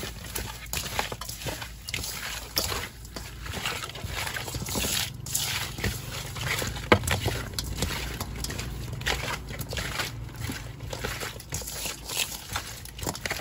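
Wet ingredients, seasonings and egg, being mixed in a bowl: irregular sloshing and squelching with scattered clicks.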